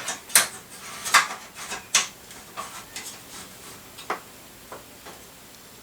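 Sharp clicks and clacks of hard computer parts being handled inside a PC case while a drive is unplugged, turned around and refitted: three louder knocks in the first two seconds, then a few fainter clicks.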